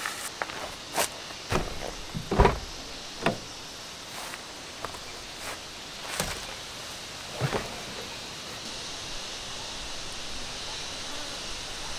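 Suzuki Jimny's driver door being opened and a person climbing in: several separate clunks and knocks, the loudest about two and a half seconds in, over a steady outdoor hiss.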